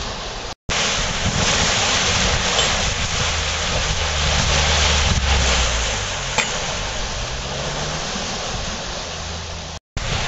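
Water rushing through opened canal lock paddles into the lock chamber as it fills: a steady churning rush, with wind buffeting the microphone. The sound cuts out briefly twice, about half a second in and near the end.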